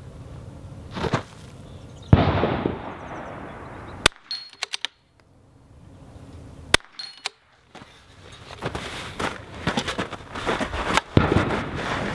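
Sharp cracks of a .22LR bolt-action rifle being fired, with metallic clicks of the bolt being worked between shots, then a run of clatter and rustle as the shooter shifts position on a wooden barricade near the end.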